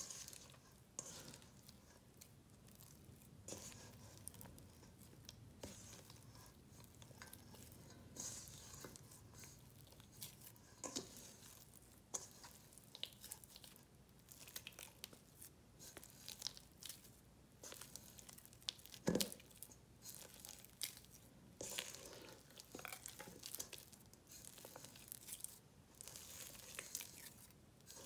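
Wet sourdough dough, after its autolyse, being squeezed and folded by hand in a stainless steel bowl: faint, irregular sticky squelching and tearing. About two-thirds of the way through comes one louder knock.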